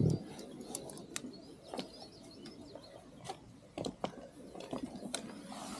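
Light, scattered clicks and knocks of a fishing rod and reel being handled while rods are swapped, about a dozen irregular taps.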